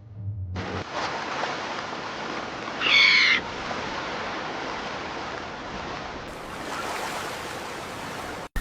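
Steady rushing noise like surf or moving water. About three seconds in comes one short, wavering, high-pitched squawk-like call, the loudest sound.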